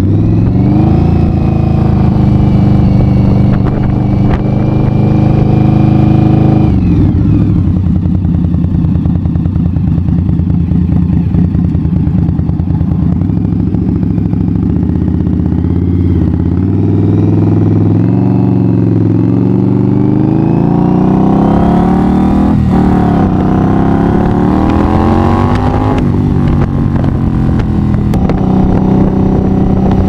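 Indian Bobber motorcycle's V-twin engine running through a Vance & Hines 3-inch exhaust, heard from the rider's seat. The engine pulls up in pitch for the first few seconds and drops sharply as the throttle comes off, then cruises steadily at low revs. From about two-thirds of the way in it pulls up again through a couple of shifts, each a rise then a sudden drop, before settling into a steady cruise.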